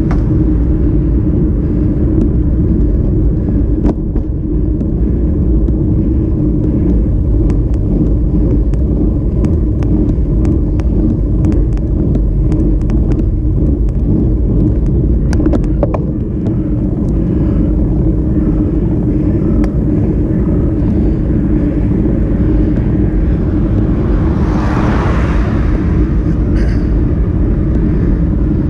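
Steady rumble of road vibration and wind buffeting a camera mounted on a road bicycle, with scattered light clicks and rattles from the bike. A vehicle passes about 25 seconds in, a swell of tyre and engine noise that rises and fades over a couple of seconds.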